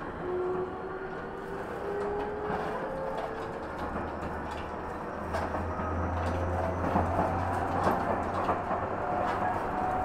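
Tobu 50050 series electric train heard from inside the car, its traction motor whine climbing steadily in pitch as the train gathers speed, over wheel rumble with scattered clicks from the rails.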